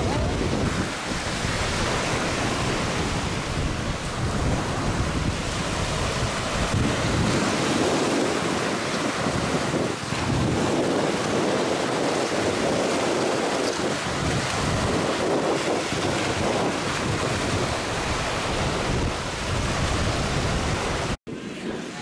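Choppy sea surf washing and breaking, with wind buffeting the microphone in a low rumble. Near the end the sound cuts off for an instant and comes back quieter.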